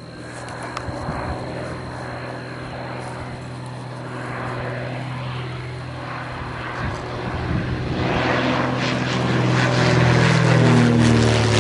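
Propeller-driven aircraft engine drone growing steadily louder as it approaches, its pitch starting to drop near the end as it passes overhead.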